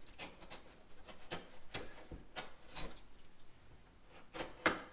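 Snap-off utility knife blade cutting and scraping away torn drywall paper and loose gypsum at the edge of a ragged hole around an electrical box. It makes a series of short, irregular scraping strokes, the sharpest near the end.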